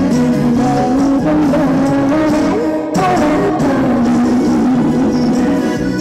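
Trot song playing loud over a stage PA, a held, bending melody line over a full band backing.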